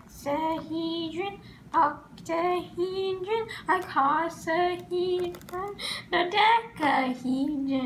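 A child's voice singing the names of the Platonic solids, one held note after another: "hexahedron", "octahedron", "icosahedron".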